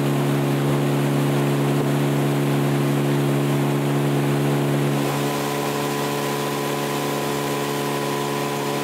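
Outboard motor running at steady speed with the boat under way, an even engine drone that turns slightly quieter about five seconds in.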